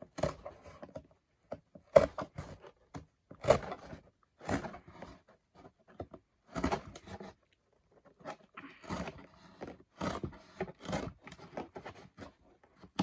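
A cardboard shoebox being cut open by hand: a series of irregular short cutting sounds with brief pauses between them, and a longer pause a little past halfway.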